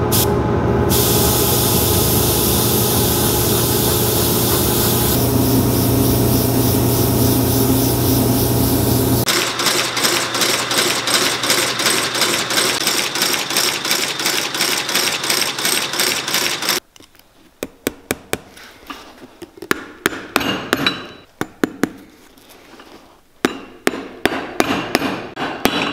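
An air compressor runs with a steady hum while an airbrush hisses. About nine seconds in this gives way to the fast, even clatter of a Landis K outsole stitching machine. From about 17 s there are scattered sharp taps of brass tacks being hammered into a leather sole.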